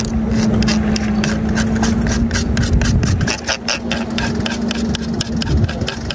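Spinning reel clicking in a fast, even rhythm, about five or six clicks a second, while a fish on the line bends the rod hard. A steady low hum runs underneath.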